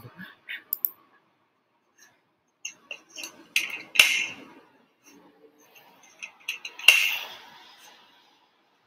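Plastic clicks and clacks of a Nerf Mega Cycloneshock blaster being handled and reloaded, with two sharper clacks about four and seven seconds in, heard from a video playing on the computer.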